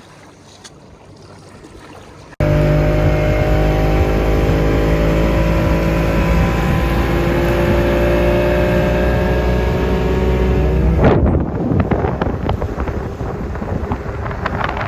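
Motorboat engine running under way. It cuts in abruptly about two seconds in as a loud, steady drone, then about eleven seconds in gives way to loud rushing wind and water noise.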